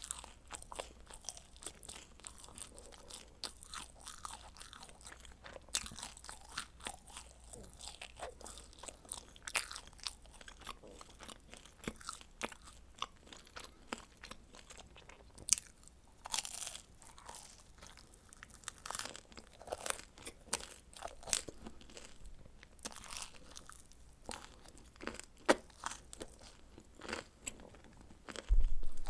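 Close-miked eating of a baked frozen pizza: chewing with many crisp crunching clicks as the crust is bitten and worked. A brief low thump comes near the end.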